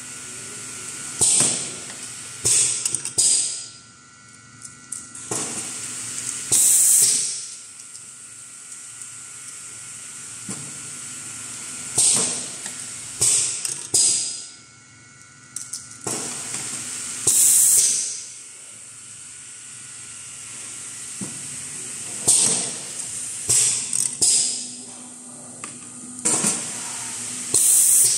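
Semi-automatic labeling machine for chew sticks cycling: its pneumatic cylinders fire with sharp hisses of exhausting air and clacks, in a cluster every few seconds as each stick is labeled, over a faint steady machine hum.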